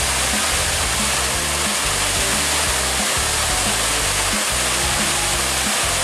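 Small waterfall cascading over rocks: a steady rush of water, with background music of low notes that change every half second or so.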